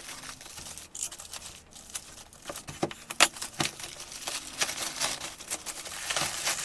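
Packaging being handled and opened: crinkling and rustling with tearing and many irregular sharp clicks.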